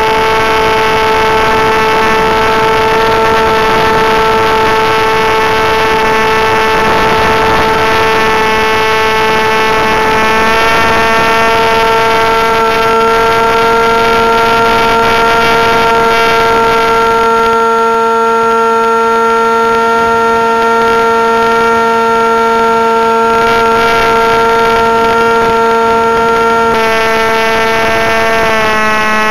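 Electric motor and propeller of an AXN Floater foam RC plane, heard from a keychain camera on board: a loud, steady whine. Its pitch steps up slightly about ten seconds in and shifts again near the end.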